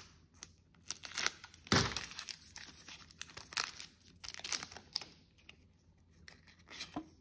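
Foil wrapper of a Pokémon card booster pack being torn open and crinkled by hand, in short irregular crackles, the loudest about two seconds in.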